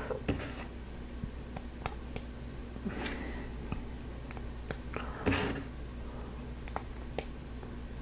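Plastic Lego Technic parts being handled, with scattered sharp clicks as pins are pushed into a beam, and a few louder snaps around the middle.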